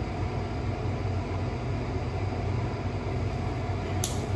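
A steady low rumble of background noise with a hum underneath, and one brief sharp click about four seconds in.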